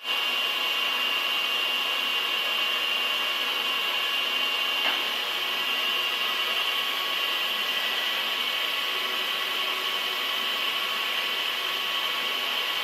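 Machine tool running steadily, a high whine of several tones over a hiss, with one light click about five seconds in.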